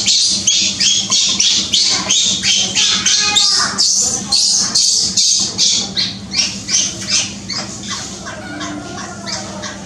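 Infant macaque crying in repeated short, high-pitched screams, about three a second, which grow weaker after about six seconds: distress cries of a baby kept from nursing.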